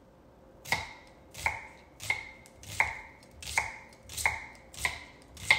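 Knife chopping onions on a cutting board, a steady cut about every three-quarters of a second starting just under a second in, each stroke ending in a short ring.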